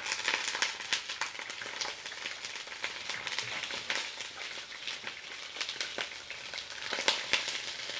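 Chicken pieces sizzling in hot oil in a glazed clay cazuela as they are laid in to brown: a steady hiss with frequent crackling pops, a few sharper ones near the end.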